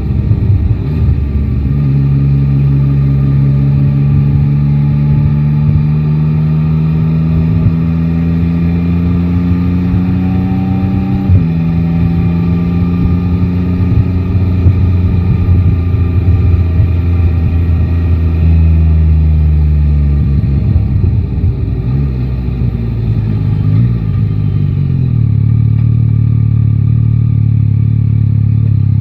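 Yamaha Tracer 9 GT's three-cylinder engine pulling steadily under gentle acceleration, its pitch climbing slowly. There is a quick upshift about eleven seconds in, after which it builds again, then eases off around twenty seconds and settles into a lower, steady drone, with wind rumble on the microphone.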